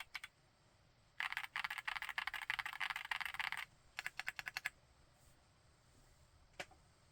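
Chilkey PAW65 full-aluminium 65% mechanical keyboard with Pink Lotus linear switches being typed on. A few keystrokes come first, then a fast, dense run of typing lasting about two and a half seconds and a short burst of strokes. After a pause, a single keystroke sounds near the end.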